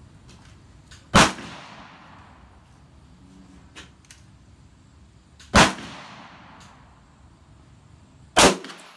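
Three single gunshots from a short carbine, a few seconds apart, each followed by a fading echo.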